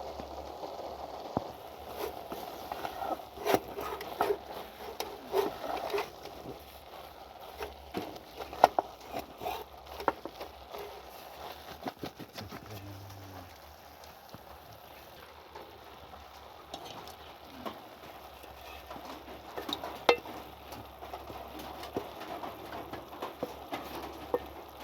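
Cooking sounds: irregular clicks, knocks and crackles over a low steady hiss, thickest in the first half and again briefly near the end.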